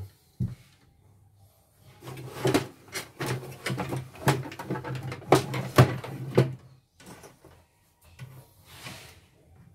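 Irregular knocks and clatter of hard plastic parts and a power cord being handled on a workbench, densest between about two and seven seconds in.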